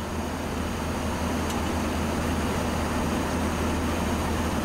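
Steady airliner flight-deck noise in flight: an even rush of airflow and air-conditioning hiss over a constant low hum.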